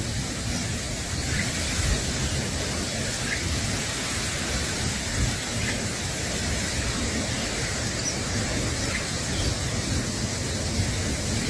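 Steady hiss and low rumble, like wind on the microphone or rain, with a few faint, short, high bird chirps scattered through.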